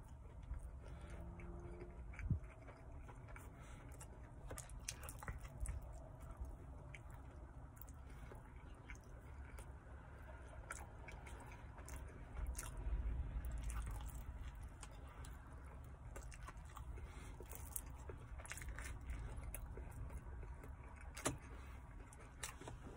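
A person chewing a mouthful of pepperoni pizza with the mouth closed, with scattered soft wet mouth clicks and smacks and a sharper click or two, over a low steady rumble.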